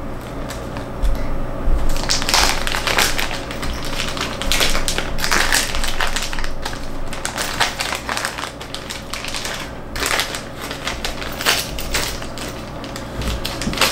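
Plastic packaging crinkling and rustling in the hands as a small keychain is unwrapped, in irregular crackles that are densest from about two seconds in.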